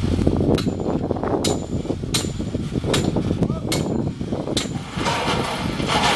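Colt dump truck reversing slowly over rocky rubble: a rumbling engine with sharp clanks roughly once a second as the loaded truck rocks over the stones.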